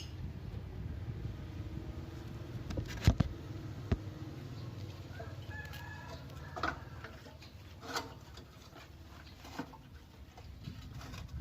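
A bird calling in the background, a drawn-out pitched call a little after the middle, over a low steady rumble, with two sharp knocks near the start and a few lighter clicks later.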